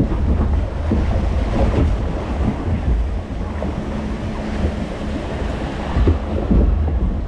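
Water rushing and splashing around a log flume boat as it floats through the channel, with wind buffeting the microphone. A faint steady hum joins about three seconds in.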